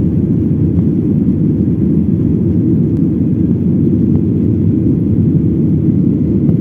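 Aircraft in flight, a steady loud low rumble without breaks.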